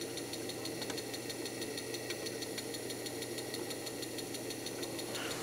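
Sony DHC-MD373's CD mechanism running with a disc spinning under its KSS-213C laser pickup: a low steady hum with fast, even faint ticking.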